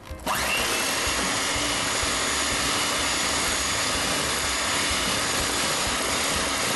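Electric hand mixer switched on a moment in, its motor spinning up with a brief rising whine, then running steadily at speed as its beaters cream butter, sugar and egg yolks in a glass bowl.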